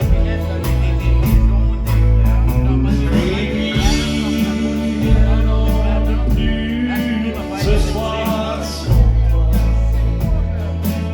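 A live band playing an instrumental passage of a song, with sustained bass notes under a steady drum beat and pitched melody instruments.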